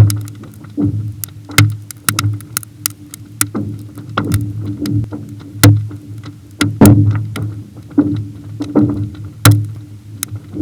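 Frozen lake ice cracking as it stresses and shifts, sharp cracks and pings several times a second over a low ringing hum from the ice sheet. The loudest cracks come a little past halfway and again near the end.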